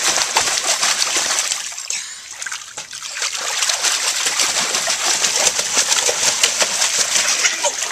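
Water splashing and sloshing in an inflatable paddling pool as children kick their legs in it. The splashing eases off for a moment about two seconds in, then picks up again and keeps going.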